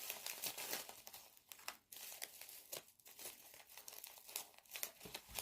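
Plastic packaging crinkling and rustling in irregular crackles as it is handled and pulled out of the package.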